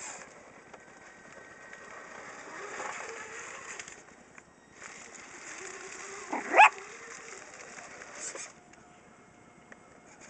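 RC4WD Trail Finder scale crawler's electric motor and gears whining as it crawls through grass, in two stretches with a short pause between. A dog barks once, loudly, about six and a half seconds in.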